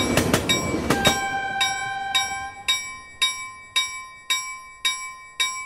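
A train passing at speed with wheel clatter for about the first second, then a railroad crossing warning bell striking evenly, about two strikes a second, each strike ringing on.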